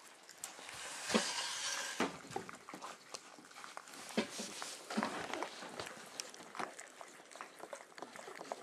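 A litter of puppies eating from clear plastic tubs on a wooden floor, with many irregular clicks and knocks from mouths, paws and tubs.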